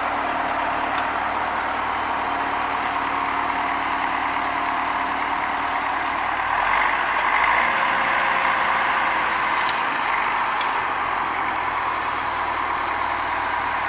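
Tractor engine running steadily, driving the hydraulics of a round-bale wrapper as it turns a haylage bale and winds stretch film onto it.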